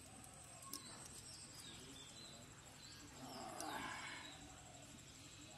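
Hands squelching and rustling in wet mud and plants as a fish is pulled out, loudest about three to four seconds in. Faint birds chirping and a steady high whine sit underneath.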